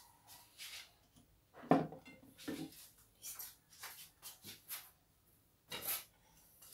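Scattered light knocks and rustles of kitchen things being handled and set down, with one sharper knock about two seconds in.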